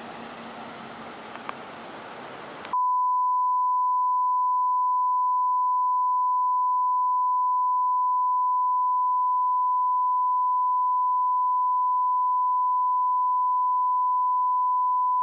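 Cabin noise inside a Mitsubishi Fuso Aero Midi MK (KK-MK23HM) city bus cuts off abruptly about three seconds in. A steady, single-pitch test tone of the kind that accompanies colour bars follows and is the loudest sound.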